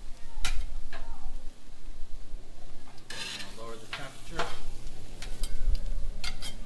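Metal spatulas scraping and clicking on the steel cooktop of a Blackstone griddle as shrimp and diced tomatoes are turned, with the food sizzling. A quick run of scrapes comes about three to four and a half seconds in.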